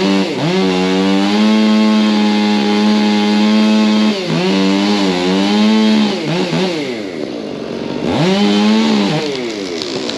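Two-stroke chainsaw running at high revs, with the pitch dropping sharply and climbing back a few times as the throttle is released and opened again. Near the end the revs fall away to a lower, rougher run.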